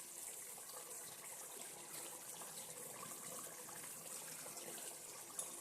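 Faint steady hiss of a covered pot of chicken masala cooking on the stove.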